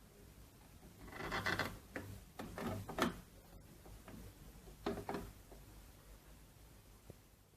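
Handling noise: three short bouts of rubbing and scraping with sharp clicks, about a second in, around three seconds in, and about five seconds in.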